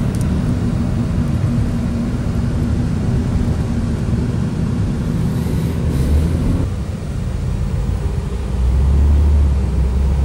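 Steady engine and road noise heard inside a moving car's cabin, a low rumble that gets louder near the end.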